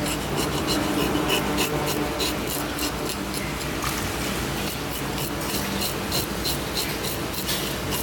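Kitchen knife scraping scales off a flathead fish in quick repeated strokes, about three a second, with a tap running onto the fish.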